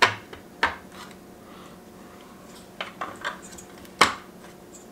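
Hard plastic clicks and knocks as a Garmin 73cv fish finder display is handled and seated into its plastic mounting bracket: a sharp knock at the start, another about half a second in, a few lighter taps around three seconds, and a loud click about four seconds in.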